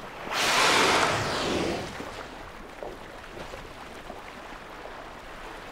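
Humpback whale blowing at the surface: one loud, breathy exhalation lasting about a second and a half, then the steady noise of open sea and wind.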